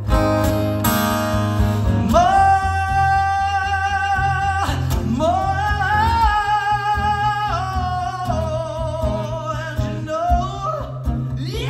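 Live solo acoustic guitar strumming with a man's voice singing long held notes over it from about two seconds in, the notes sliding between pitches. Recorded through a mobile phone's microphone.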